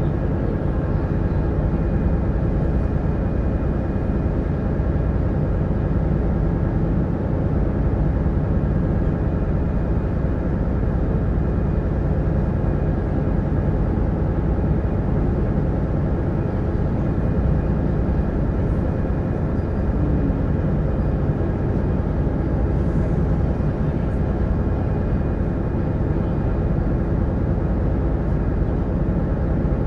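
Diesel engine of the Black Ship Susquehanna sightseeing boat running steadily at cruising speed, an even drone.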